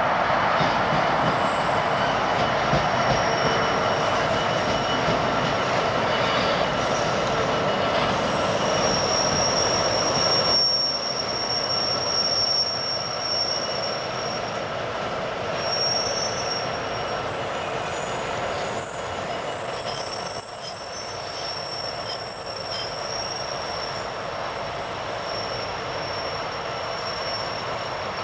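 EWS Class 66 diesel locomotive hauling a long train of loaded car-carrier wagons past, a steady rolling rumble with long high-pitched wheel squeal over it. The sound drops a little about ten seconds in as the wagons roll by.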